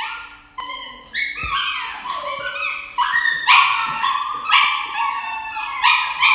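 A puppy yelping and crying in a rapid run of about a dozen short, high-pitched cries, several falling in pitch, as it is held for an injection at the neck.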